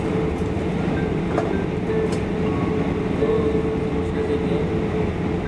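Cabin noise of an Airbus A340-600 taxiing after landing: the Rolls-Royce Trent 500 engines at idle and the wheels on the taxiway make a steady rumble with a steady hum on top.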